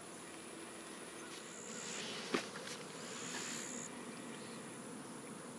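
Insects droning in the woods: a steady high-pitched whine with a buzzing call that starts and stops twice. A single sharp click a little over two seconds in.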